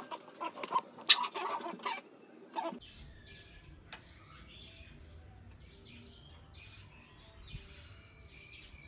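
Scattered scrapes and clicks for the first few seconds, then small birds chirping over and over in the background.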